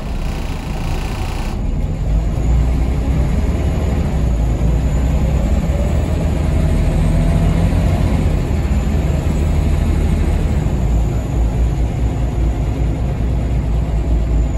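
Scania L94UB bus's Scania DSC9 six-cylinder diesel engine heard from inside the cabin while under way: a steady low drone that grows louder about two seconds in. A hiss cuts off suddenly about a second and a half in.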